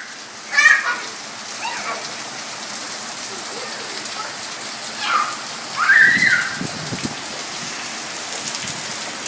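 Steady rain falling, with a child's voice calling out briefly a few times.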